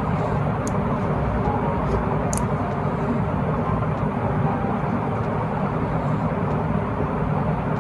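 Steady rumbling background noise with a couple of faint short clicks in the first few seconds.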